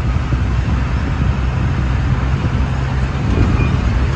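A truck's engine and road noise heard from inside its cab while driving: a steady low drone and rumble with no separate events.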